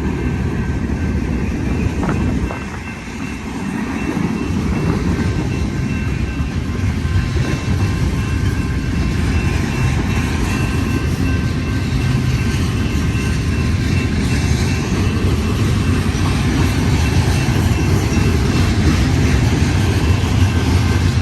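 A freight train's cars rolling past close by, with steel wheels on the rails making a steady, loud rumble. Faint thin squealing tones run above the rumble.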